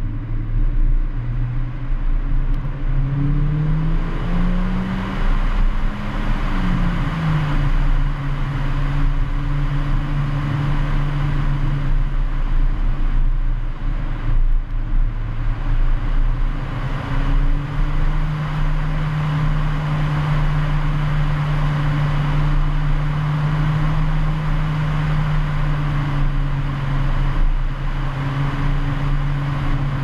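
Mercedes-AMG A45's turbocharged four-cylinder engine heard under loud wind noise and rumble from the rough road surface. Its note climbs about three seconds in, drops back around seven seconds in, then holds steady with a brief dip midway.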